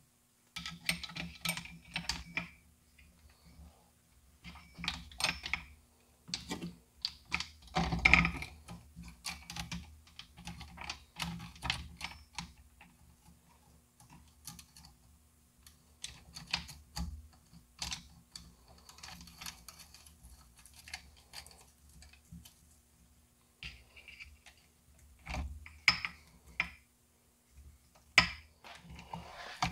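Loose chainsaw chain clinking and rattling as it is handled by hand and fitted around the bar and drive sprocket, with irregular clusters of light metallic clicks and taps.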